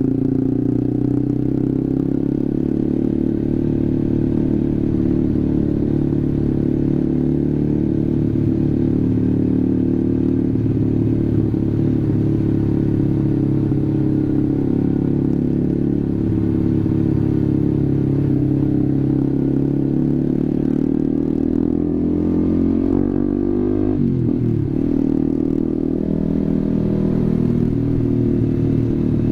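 Honda CBR150R single-cylinder engine running through an SC Project aftermarket exhaust while riding at steady speed. About three-quarters of the way through, the engine note drops and then climbs again.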